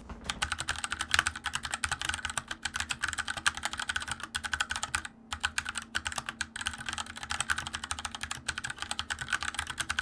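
Fast typing on a Glorious GMMK Compact 60% mechanical keyboard with tactile Gateron Brown switches and ABS double-shot keycaps: a steady clatter of keystrokes, with a brief pause about five seconds in.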